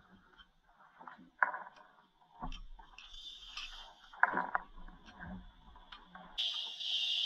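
Scuba diver breathing through a regulator underwater: an exhalation of bubbles with scattered clicks and short surges, then the steady hiss of an in-breath through the regulator starting about six seconds in.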